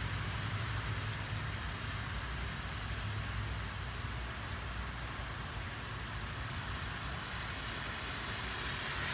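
Steady hiss of rain falling, with a low rumble that dies away over the first few seconds.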